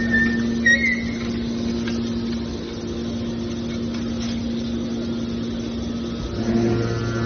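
Metal baler machinery running with a steady hum. A brief high metallic squeal comes in the first second, and a deeper hum joins near the end.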